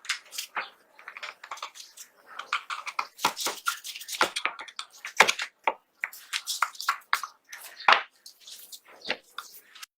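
Irregular clicks, knocks and light clatter of small steel pistol parts being handled and worked, with two sharper knocks about five and eight seconds in.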